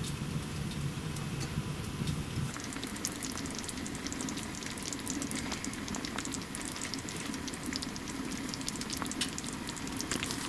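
Chicken and potato stew cooking in a pan on a stove, sizzling with a dense patter of fine crackles.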